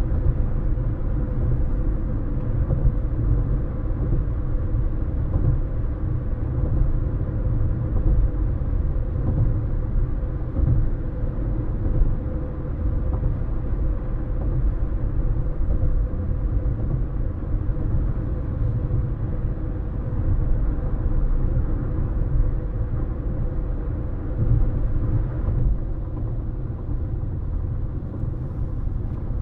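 Steady road noise of a moving car: a deep rumble of tyres and engine with a faint steady hum, even throughout with no distinct events.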